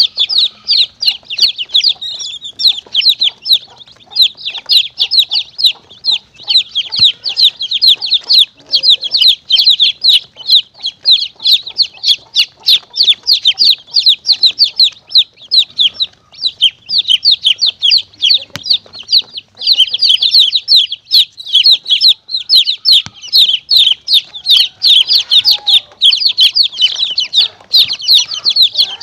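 Many baby chicks peeping in a dense, continuous chorus of short, high cheeps, several a second.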